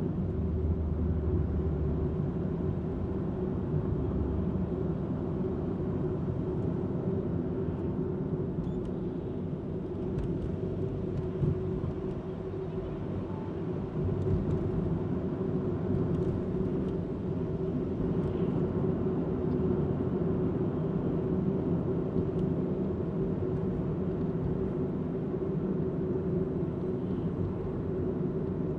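Steady low rumble of a car driving in city traffic, engine and tyre noise heard from inside the cabin, with a slight dip in level about twelve seconds in.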